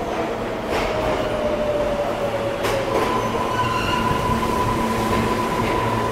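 R143 subway train pulling into the station and braking, with a whine that slowly falls in pitch and then gives way to a steadier, higher whine about halfway through. A couple of sharp clacks come as the wheels cross rail joints, over a steady rumble of the cars.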